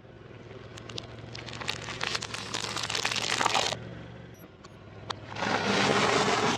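A car tyre crushing hard candy-coated chocolates and then a stack of crunchy sesame snacks. A run of crackling, snapping crunches builds over the first few seconds, goes quieter, then a dense loud crunch comes near the end. A low steady hum runs underneath.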